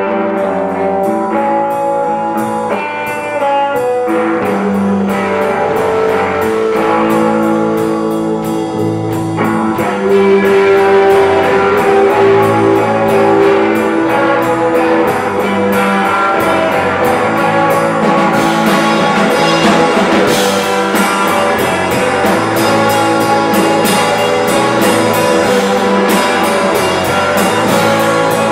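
Live rock band playing electric guitars and bass over a drum kit. The band gets louder about ten seconds in, and the cymbals grow busier later on.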